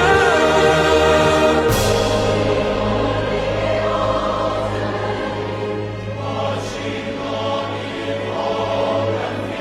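Choral music with orchestra: a choir singing sustained lines, with a change in the music about two seconds in.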